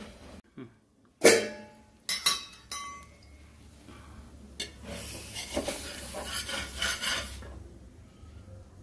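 Metal kitchen utensils clanking against pots and pans. A loud clank comes about a second in, then a few quick clinks, then several seconds of rough scraping and rattling.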